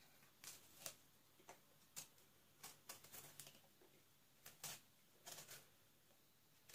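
Near silence broken by faint, scattered light taps and rustles as whole eggplants are picked up and moved about on a metal tray.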